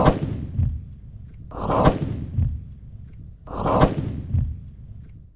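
A solid-fuel rocket motor exploding on the ground: a sharp bang followed by a rushing, rumbling blast that fades over about a second, heard three times about two seconds apart.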